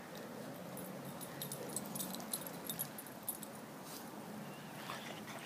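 Small dog's collar tags jingling faintly as it trots about, a cluster of light metallic clinks between about one and three seconds in.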